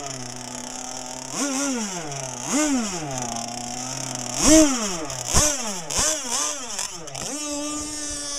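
Small two-stroke gas engine of a radio-controlled mono racing boat, revved in a series of short throttle blips that each rise and fall, the loudest about four and a half seconds in. Near the end it settles into a steady, higher-pitched run.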